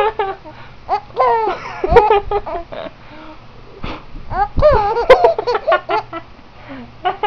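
A three-month-old baby laughing, its first laughs: several short bouts of laughter with pauses between.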